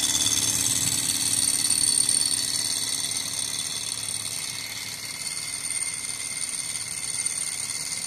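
Small alpha-type hot-air Stirling engine model running fast with no generator load, a steady high mechanical whir from its pistons and flywheel. It grows somewhat quieter from about two seconds in.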